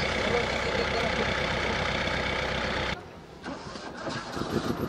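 Engine of a school bus idling steadily, cutting off abruptly about three seconds in; a quieter, fast, even pulsing follows near the end.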